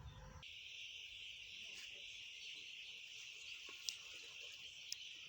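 Faint, steady high-pitched insect chorus that cuts in suddenly about half a second in, replacing a low rumble, with two short ticks near the end.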